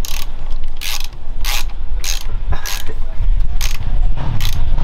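Ratchet wrench ratcheting in even back-and-forth strokes, about seven strokes roughly every 0.7 s, as a bolt is run in at the front wheel of a dirt bike.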